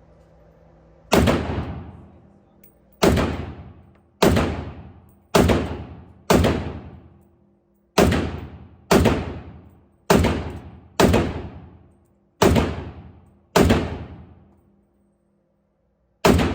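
Gunshots from a firearm at a shooting range: about a dozen single shots, roughly one a second, each ringing out briefly, with a longer pause before the last shot near the end.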